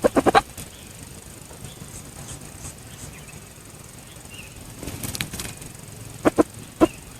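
Red junglefowl clucking in short, sharp notes: a quick run of four at the start, then two more and a single one near the end. A brief rustling burst comes about five seconds in.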